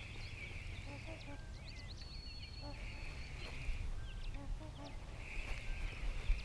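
Songbirds singing in short chirps, with a buzzy trill about a second long recurring every two to three seconds, over short soft low calls from swans on the water. A low wind rumble on the microphone runs underneath.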